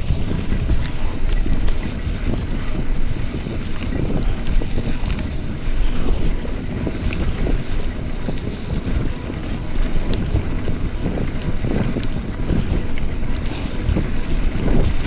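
Wind buffeting the microphone of a camera riding along on a bicycle: a loud, steady low rumble with a few faint small knocks.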